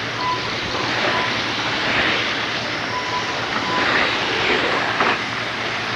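A pack of RC race cars' small motors buzzing as they lap the track, the sound swelling and fading as the cars pass. Faint short beeps sound now and then.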